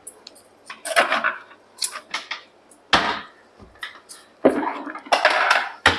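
Spoons and kitchen containers clinking and clattering as spice powders are spooned out: a string of irregular short knocks, with a longer clatter near the end.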